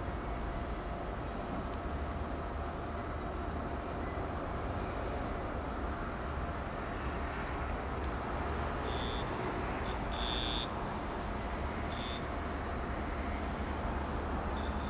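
Steady outdoor background rumble and hiss across a harbour, with a few short high chirps from about nine seconds in.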